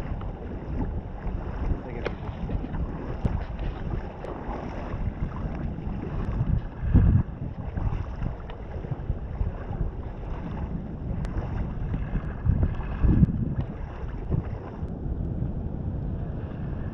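Wind buffeting the microphone: a rough, low rumble with two heavier thumps, about seven seconds in and again near thirteen.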